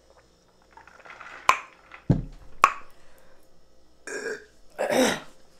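A woman burping, several short belches after drinking through a straw, with two sharp clicks in the first half.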